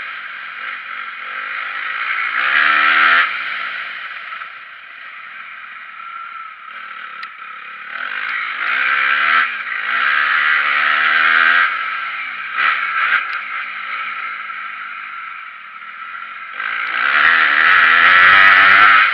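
Motocross dirt bike engine revving hard and backing off, three times, heard from an onboard camera; the pitch climbs on each surge and drops as the throttle closes.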